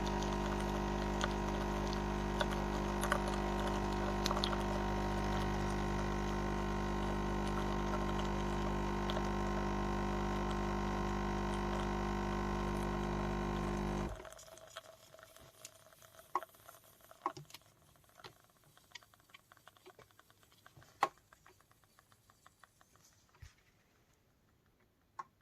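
Dolce Gusto capsule coffee machine brewing: its vibration pump runs with a steady hum and the spatter of coffee streaming out, and cuts off suddenly about fourteen seconds in. After that only scattered small clicks and ticks are left, as the last coffee drips into the cup.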